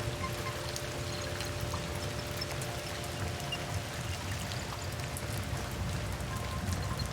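Steady rain with many separate drops falling close by. Soft held music tones sit faintly underneath: one chord fades out over the first few seconds and a higher tone comes in near the end.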